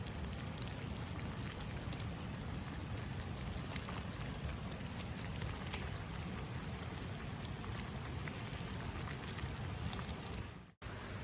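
Wood fire crackling: scattered sharp pops and snaps over a steady low rumble, broken by a brief dropout near the end.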